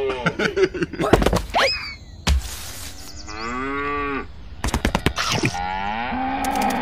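A cow mooing: one long moo that rises and then falls, with a second moo starting near the end. Short clicks and quick rising glides come before the first moo, and another run of clicks comes between the two.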